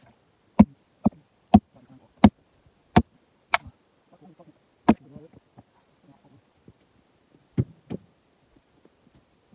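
A run of sharp, hard strikes from a long-handled tool hitting the freshly cut jarrah round: seven in quick succession about every half second, then a pause, one more, and two close together near the end.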